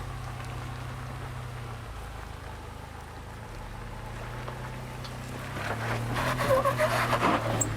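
Pickup truck engine running steadily at idle, with a crackling, crunching noise that grows louder from about five and a half seconds in.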